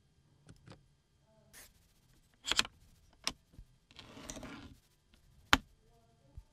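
A few sharp plastic clicks and knocks with a short rustle about four seconds in, from hands handling a USB tester in a car's rear-console USB port; the loudest click, near the end, comes as the tester is pulled out of the port.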